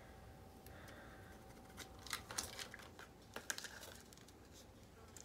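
Faint clicks and short rustles of a small plastic toy and a paper sticker sheet being handled with long fingernails, the clicks bunched near the middle.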